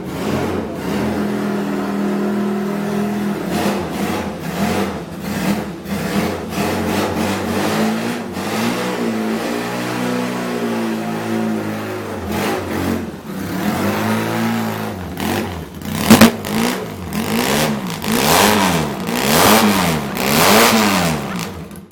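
1972 John Player Norton racing motorcycle's parallel-twin engine running, first at a steady note and then blipped again and again, the pitch rising and falling with each rev. A single sharp crack comes about two-thirds of the way through.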